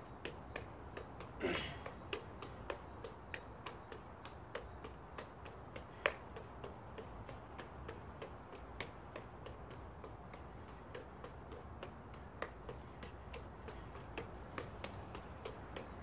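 Five juggling clubs being caught and thrown in a cascade, their handles slapping into the palms in a steady run of clicks, about three a second. About a second and a half in, a brief whistle-like sound falls in pitch.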